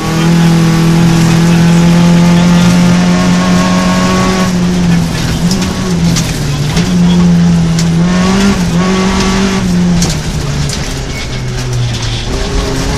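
Rally car engine heard from inside the cockpit, held at high revs for about four and a half seconds, then dropping and rising several times through gear changes and lifts. Sharp knocks of gravel strike the underbody now and then.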